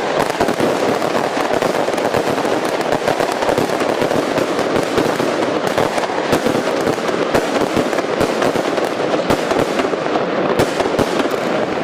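Firecrackers bursting in a rapid, continuous crackle of pops with no pauses.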